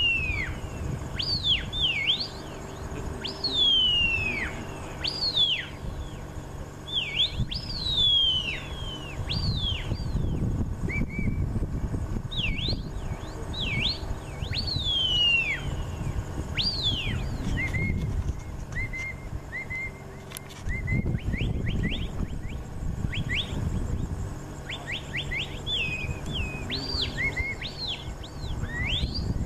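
A stockdog handler's whistle commands to a border collie working cattle: repeated high whistles, many sweeping sharply down in pitch, others short and flat, given in quick series with a cluster of short notes near the end. A low rumble of wind on the microphone swells at times underneath.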